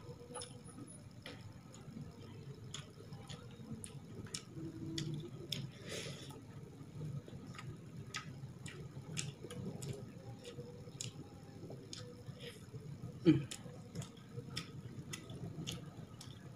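Close-up eating sounds: a hand mixing rice and side dishes in a metal pan and a mouth chewing, heard as scattered wet clicks and smacks, with one louder knock about 13 seconds in.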